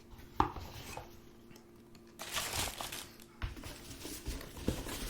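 Paper packaging rustling and crinkling as items are unwrapped, with a click near the start and a few light knocks of objects handled on a table.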